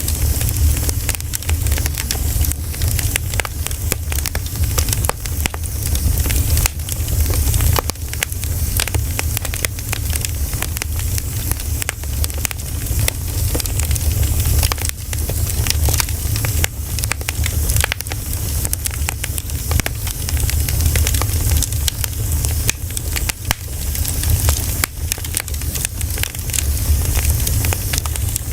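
Campfire of pine cones burning, with dense, continuous crackling and popping over a steady low rumble.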